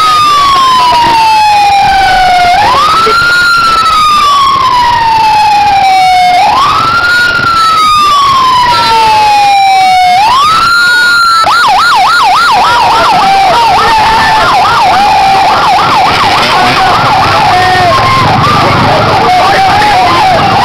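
Police car's electronic siren wailing, each cycle rising quickly and falling slowly over about four seconds, then switching about eleven seconds in to a fast yelp of several rises and falls a second. Fainter gliding siren tones sound above it.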